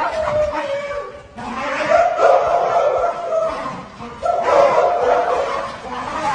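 A dog howling in long, wavering drawn-out howls, with short breaks about a second and a half in and again about four seconds in.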